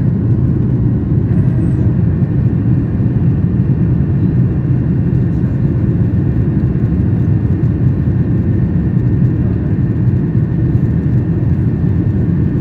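Steady cabin noise of a Boeing 737-800's CFM56-7B turbofans and rushing air, heard from a window seat over the wing as the jet climbs out after take-off. It is a loud, even, low rumble with a faint higher hum.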